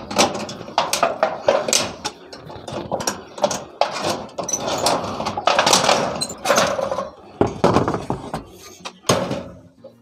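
Tin snips cutting and notching the edge of a corrugated galvanized steel roof sheet: an uneven run of sharp snips and sheet-metal clatter, with a heavier knock about three-quarters of the way through.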